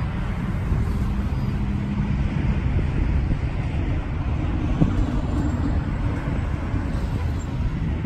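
Road traffic: cars and minivans driving past, a steady rumble of engines and tyres.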